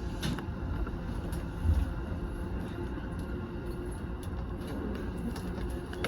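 Keiyo Line electric train running, heard from inside the car: a steady low rumble of wheels on rail, with a heavy thump about two seconds in.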